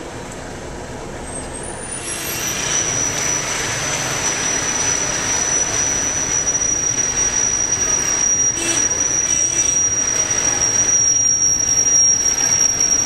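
Street traffic: vehicles driving past, with a steady high-pitched whine that starts about two seconds in and stays on top of the traffic noise.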